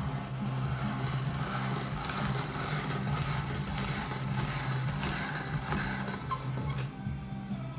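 Hand-cranked steel pasta machine in use: the crank, gears and rollers turning continuously as a sheet of fresh pasta dough is fed through. Underneath there is a steady low hum.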